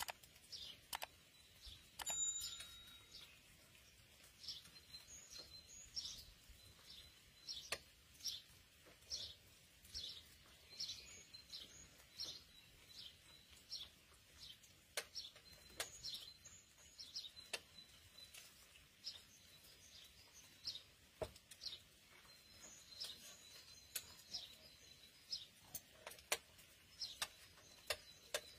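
Small birds chirping: short high chirps repeating one or two a second, with a few light clicks of spoons on plates.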